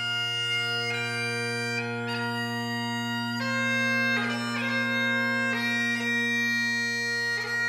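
Highland bagpipes playing a slow tune, the melody notes changing every second or so over a steady unbroken drone.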